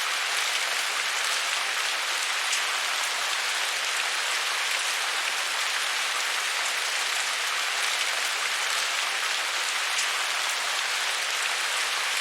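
Heavy rain falling steadily, an even hiss of many drops with faint individual patters, stopping suddenly at the end.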